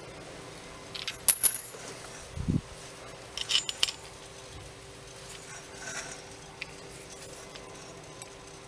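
Metal clinking as a homemade tube tool is worked onto an aluminium beer keg valve by hand. A ringing clink comes about a second in, then a dull knock, a cluster of clinks near four seconds, and a few light ticks after, over a faint steady hum.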